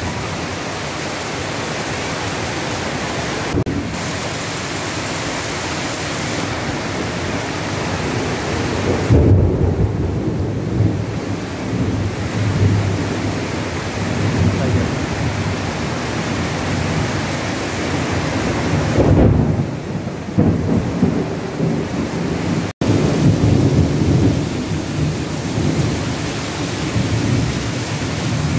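Heavy rain pouring steadily in a thunderstorm, with thunder rumbling twice, about nine and nineteen seconds in.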